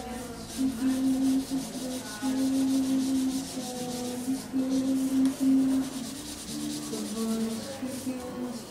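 A marker scrubbing rapidly back and forth on paper as it colours in a shape, a steady scratchy rubbing in repeated strokes. Held low notes of background music run underneath.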